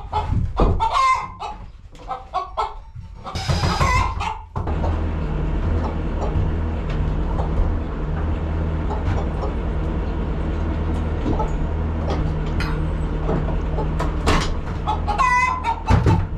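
Chickens clucking and calling in the coop. About four and a half seconds in, a steady low machine hum starts abruptly and carries on, with scattered knocks and clatter, and more clucking calls near the end.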